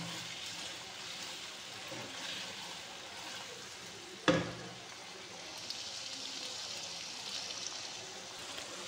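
Chicken and vegetables sizzling quietly in a nonstick wok while a wooden spatula stirs them, with one sharp knock about four seconds in.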